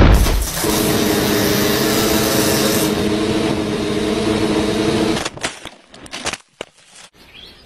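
Small folding quadcopter drone's propellers buzzing steadily, then cutting out suddenly about five seconds in as it comes down in the bushes. A few light knocks and rustles follow.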